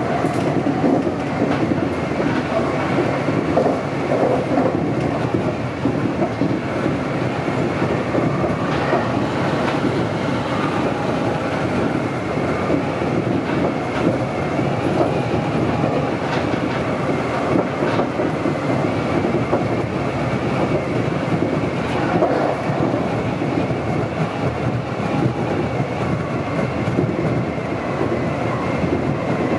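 Meitetsu 100 series commuter train running at speed, heard from inside the driver's cab: a steady rumble of wheels on the rails with a few clacks over rail joints.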